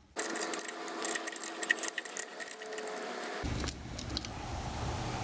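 Light metallic clinking and jingling of a small wrench and a nut being worked off a motorcycle starter terminal, with scattered sharp clicks over a steady background hum.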